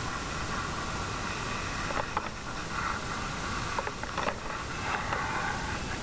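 Fire hose nozzle spraying a straight stream of water, a constant rushing hiss, with a few brief knocks.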